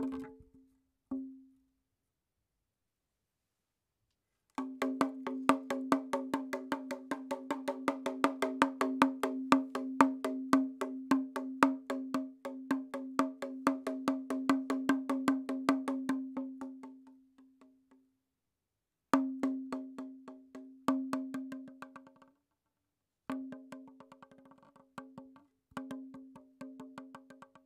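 Background music: quick, even wood-block taps over a held pitched tone, cutting out abruptly to silence a few times.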